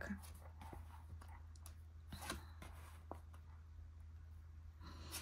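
Linen-cardstock tarot cards being leafed through in the hand: faint slides and soft clicks of the cards, a little louder about two seconds in, over a low steady hum.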